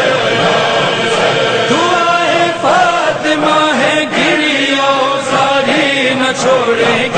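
Men's voices chanting a melodic Urdu nauha, a Muharram mourning chant, in long held notes that bend up and down.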